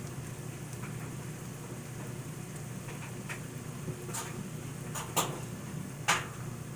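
Potato pancakes frying in a pan of oil, a steady hiss, with a few sharp taps of a utensil against the pan in the second half, the loudest about five and six seconds in.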